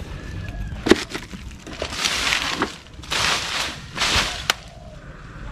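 Rustling of freshly cut longan branches and leaves in three bursts, with sharp snaps of twigs. The loudest snap comes about a second in.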